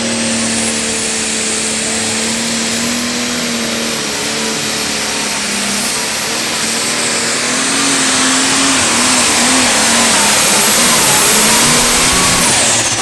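International 1586 pulling tractor's turbocharged diesel engine running at full power under load while dragging the weight sled, with a high, steady turbo whistle over the engine. Near the end the whistle and the engine fall away sharply.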